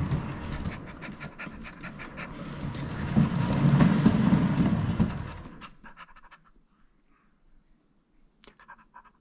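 Wooden cat exercise wheel with a carpeted track rumbling as a cat runs in it, getting louder over the first few seconds, then dying away about five to six seconds in as the wheel rolls to a stop. A few faint clicks near the end.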